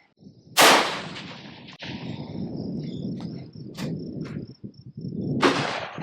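Two rifle shots about five seconds apart. The first is the louder, and each is a sharp crack followed by a rolling echo. Insects chirp steadily behind them.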